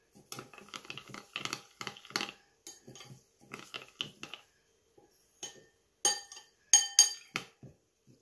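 Metal spoon stirring seeds in water in a white ceramic bowl: a quick run of gritty scraping strokes against the bowl, then sparser ones, then a few sharp, ringing clinks of spoon on china near the end.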